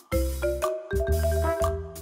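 Upbeat background music: a melody of short, bright pitched notes over a pulsing bass line.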